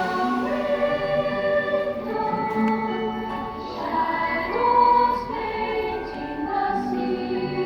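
Choral Christmas music: a choir singing sustained chords over instrumental accompaniment.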